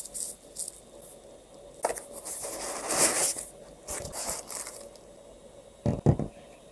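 Packaging being handled during unboxing: a bubble-wrap bag crinkling and cardboard and foam scraping and rustling in irregular spells, the longest about three seconds in. Near the end come two dull knocks as a boxed battery is set down.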